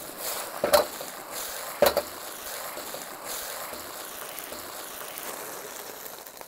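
Sauce sizzling and bubbling in a hot wok just after a splash of black vinegar goes in: a steady hiss, with two sharp knocks from a utensil against the pan in the first two seconds.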